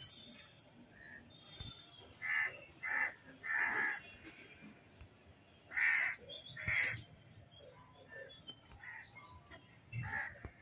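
Harsh animal cries, short and loud, coming in a group of three and then a group of two, with more starting near the end.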